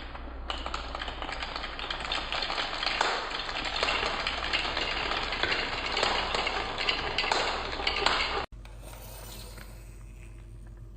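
Marbles rolling and clattering down a wooden marble run track, a dense rattle of many small clicks that cuts off suddenly about eight seconds in, leaving a low steady hum.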